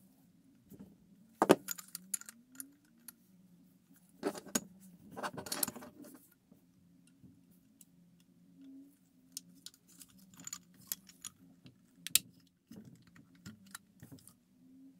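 Plastic toy cement truck parts being handled and snapped together: scattered sharp clicks and short clattering rattles, loudest about a second and a half in and again near twelve seconds, with a denser stretch of rattling around four to six seconds. A faint steady hum lies underneath.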